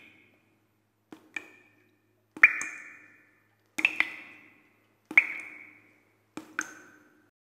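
A series of five short ringing pings about 1.3 s apart. Each is a quick double tap that rings on a clear high tone and fades within about a second.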